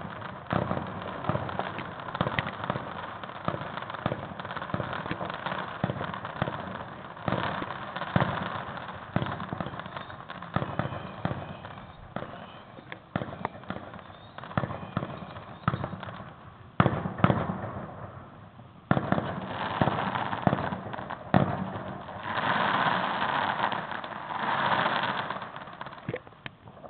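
Fireworks going off in a dense, irregular run of bangs and crackles, with the loudest bangs about 17 seconds in. Near the end comes a longer hissing crackle lasting a few seconds.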